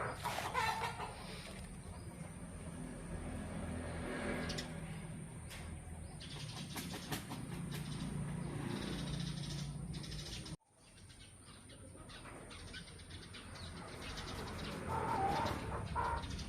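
Yard ambience with birds chirping, and a chicken calling near the end. The sound drops out suddenly about two-thirds of the way through and fades back in.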